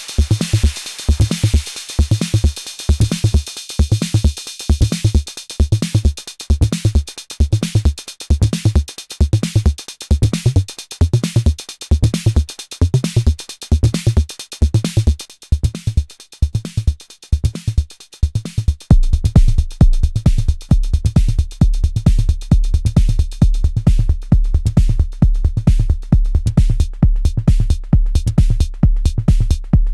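Arturia DrumBrute Impact analog drum machine playing a sequenced beat with its distortion engaged: a steady kick drum pulse under fast hi-hats. About two-thirds of the way through, a sustained deep bass tone joins and the pattern gets louder.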